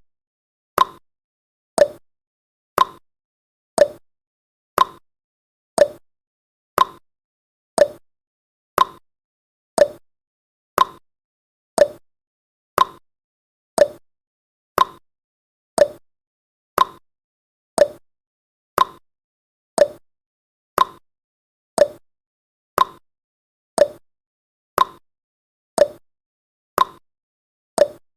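Countdown timer's ticking sound effect: one short, sharp tick every second, evenly and steadily, with silence between ticks.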